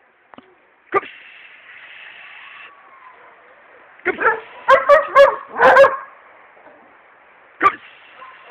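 Hound dog barking: a single bark about a second in, a quick run of loud barks around the middle, and one more bark near the end.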